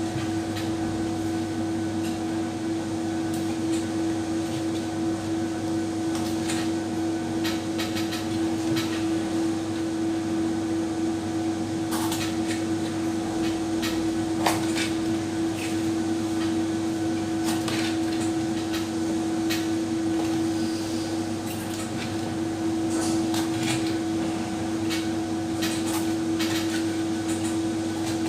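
A steady machine hum, as of a fan or small motor, with scattered light clicks and knocks of hand work on top.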